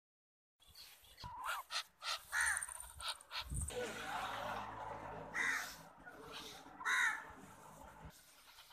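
Several short, harsh, raspy bird calls, the loudest about two and a half seconds in and again about seven seconds in, over a steady noise through the middle.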